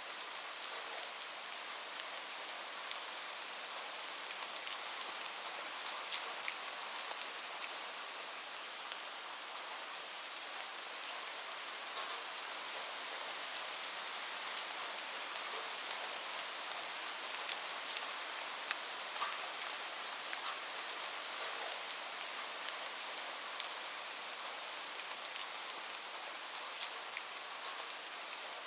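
Steady rain falling, an even hiss with many individual drops ticking on a surface.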